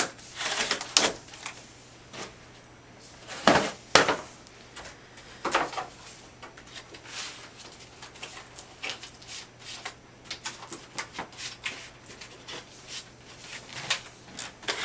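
Cardboard display flaps and dividers being handled, folded and tucked into place: scattered rustles, scrapes and knocks, with two sharper knocks about three and a half and four seconds in.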